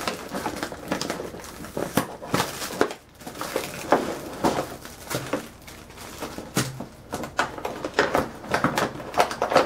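Clear plastic packaging tray of a toy drone crinkling and crackling as it is handled and lifted out of its box, with irregular clicks and rustles throughout.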